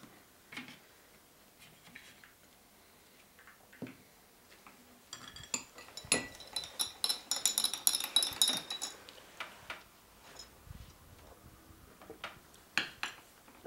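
A teaspoon stirring tea in a small tulip-shaped Turkish tea glass: a rapid run of ringing clinks for about four seconds midway. A few separate soft taps come before and after.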